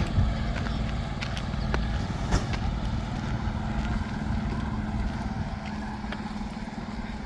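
An engine running steadily, a low hum with a constant tone, with a few light clicks over it.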